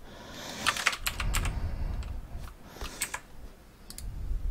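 Scattered clicks from a computer keyboard and mouse while a program's menus are being worked, a few separate clicks a second or so apart, over a faint low rumble.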